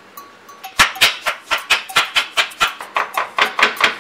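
Chef's knife mincing garlic on a wooden cutting board: quick, even knocks of the blade on the wood, about five a second, starting about a second in.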